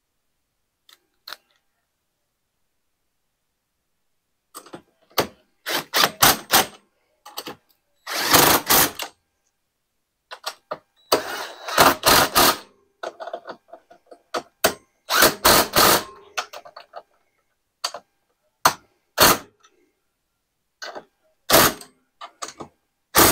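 Cordless drill with a socket bit running bolts in, in a series of short bursts of about a second each, starting about five seconds in.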